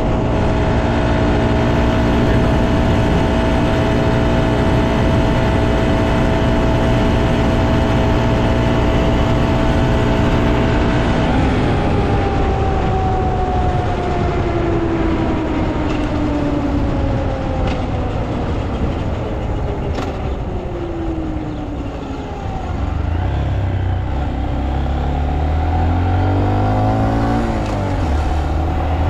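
Honda Monkey's 124 cc single-cylinder engine running at a steady cruising speed. About a third of the way in, its note slowly falls as the bike slows. Near the end the revs pick up and rise again.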